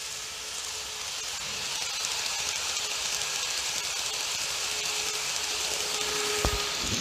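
N-gauge model E233 series commuter train running on its track: a steady rushing whir of the small motor and wheels on the rails that grows louder over the first couple of seconds as the train nears and passes the camera, with a faint steady tone beneath it and a click near the end.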